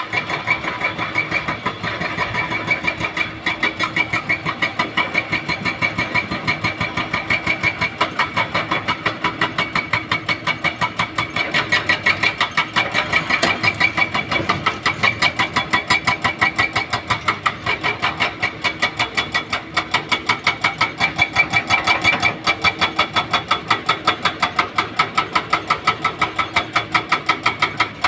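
Diesel excavator engine running steadily, with an even rhythmic pulse of about four beats a second.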